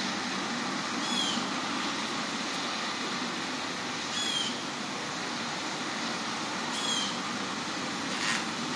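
A short, high call that falls in pitch, repeated three times about three seconds apart, over a steady wash of background noise.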